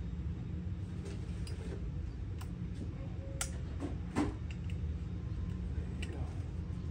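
Small metal clicks and taps, a handful spread out with a louder pair past the middle, as snap rings are fitted from underneath onto the washers of a Walker mower deck carrier, over a steady low rumble.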